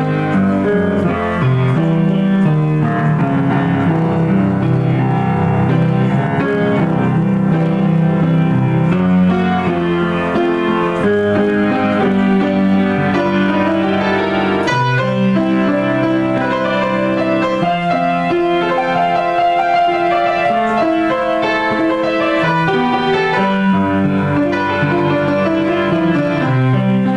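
A grand piano played solo in a continuous improvisation, both hands at once, with sustained low notes under busier lines above.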